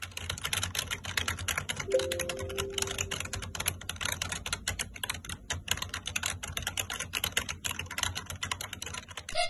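Rapid typing on a computer keyboard: a quick, continuous patter of key clicks.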